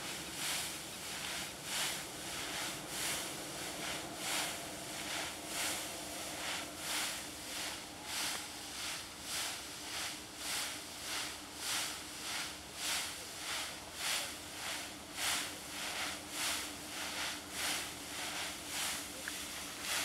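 Dry standing wheat swishing and crackling against legs in a steady rhythm of steps through the crop, roughly one and a half to two swishes a second.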